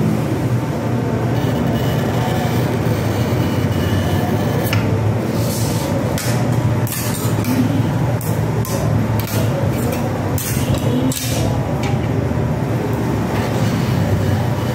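A steady low rumble runs throughout. From about five seconds in to about eleven, a paper sheet being cut and handled gives a run of short, crisp scratching and rustling noises.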